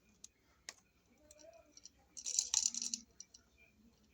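Small clicks and rattles from handling a wall receptacle and its copper wire while bending the wire into a loop for a terminal screw: a sharp click about a second in, then a short burst of rattling about two seconds in.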